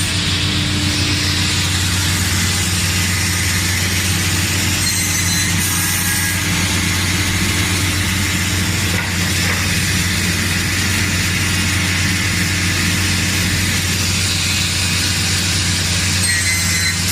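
Filato 3200 Maxi sliding-table panel saw running steadily: a constant motor hum under a broad hiss.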